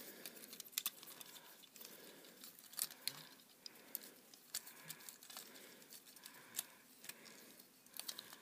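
Faint, irregular plastic clicks and small rattles as a Beast Hunters Deluxe Bumblebee toy figure is handled and its parts are moved, as in transforming it.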